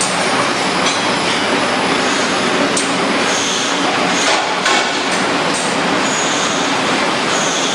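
Horizontal flow wrap packaging machine running, giving a steady, loud mechanical clatter. Brief high squeaks come and go, and there is a sharp click past the middle.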